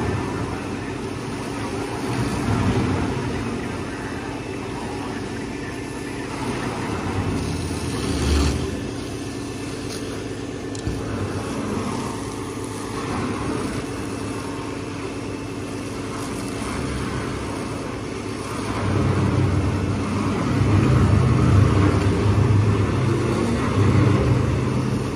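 Fire engine running its pump to supply a hose line, a steady mechanical drone, with the hiss of the hose stream spraying water onto a burning dumpster. The low engine drone grows louder about three quarters of the way through.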